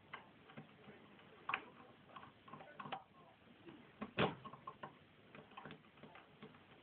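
Lock pick clicking and scraping against the discs inside a Ford Granada front door lock barrel, small irregular metal ticks, the loudest about four seconds in.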